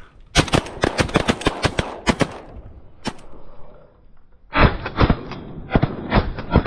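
A rapid, irregular run of sharp cracks and knocks in two clusters. The first fills the opening two seconds. A second, duller cluster starts about four and a half seconds in.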